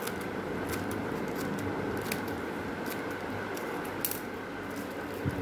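Scissors snipping through a thin clear plastic bag: several short, sharp snips spread over a few seconds.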